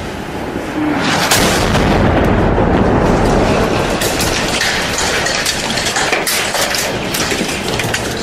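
Loud, dense rumbling noise that swells about a second in, with many sharp cracks and bangs running through it.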